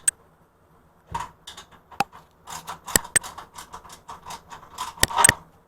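Irregular clicking, clinking and knocking of hand tools and metal parts during a teardown, with a few sharp, louder metallic knocks about 2, 3 and 5 seconds in.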